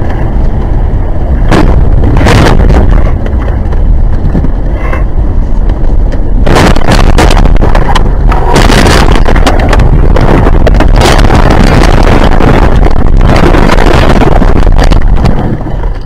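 A car crashing off an icy road, heard from inside the cabin: a loud, continuous rumble and scraping of the body over snow and rough ground, broken by repeated hard impacts as the car tumbles, heaviest in the second half. The noise cuts off about a second before the end as the car comes to rest.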